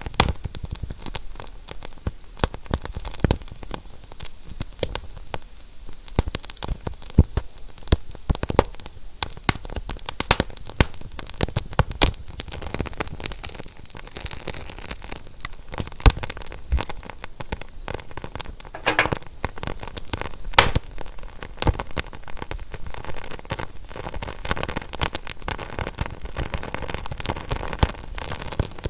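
Wood fire crackling: irregular sharp pops and snaps over a steady hiss, with a short hiss about two-thirds of the way through.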